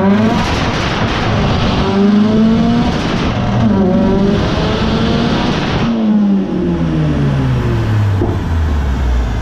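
Turbocharged Mitsubishi Lancer 4G15 MIVEC four-cylinder engine revving hard. The revs climb sharply and stay high with brief dips, then fall steadily over the last three seconds.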